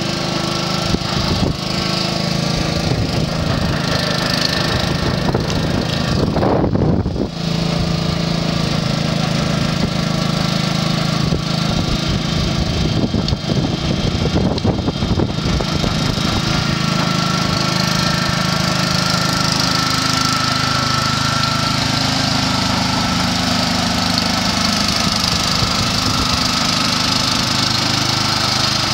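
Small engine running steadily, driving the homemade side paddle wheels of a pontoon boat, with the wheels churning and splashing the water.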